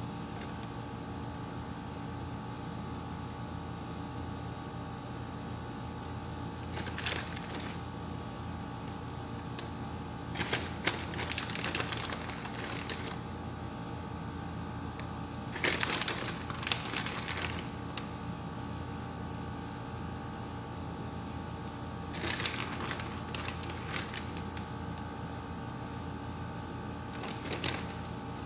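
Plastic bag of shredded cheese crinkling in about five short bursts as it is handled and shaken out, over a steady background hum.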